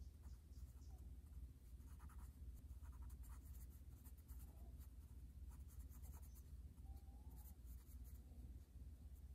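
Charcoal pencil scratching on paper in quick, short scribbling strokes, faint, over a low steady hum.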